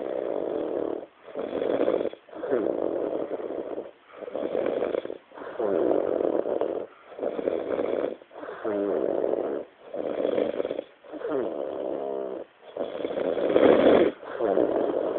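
A person asleep after heavy drinking, snoring loudly and steadily, about one rasping snore every second and a quarter. Some snores carry a flapping, fart-like flutter, and the loudest comes near the end.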